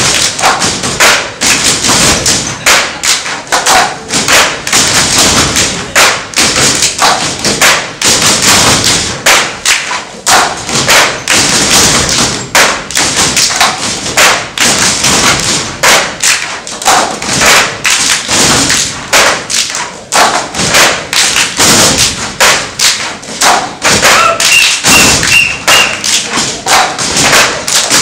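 Ensemble of djembes and dunun bass drums playing a fast, driving rhythm, a dense run of hand and stick strokes several a second, with a few short high-pitched tones near the end.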